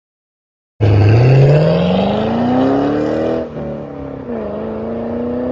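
Racing car engine accelerating hard, its pitch climbing steadily. About two and a half seconds after it starts, the pitch drops sharply at a gear change, then climbs again.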